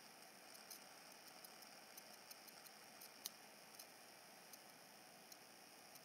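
Near silence: faint room hiss with scattered small, irregular clicks, the sharpest about three seconds in.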